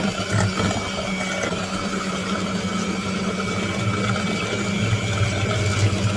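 A 200 W electric hand mixer with twin wire beaters running at a steady whir, whisking eggs with sugar and starch in a stainless steel bowl.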